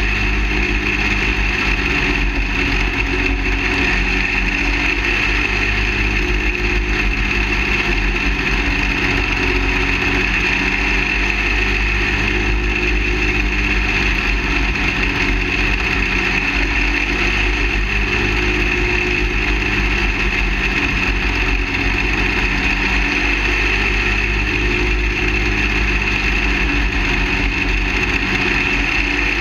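Engine of a half-scale dirt late model race car running under power through laps, heard from its roof. A continuous drone whose pitch shifts a little up and down.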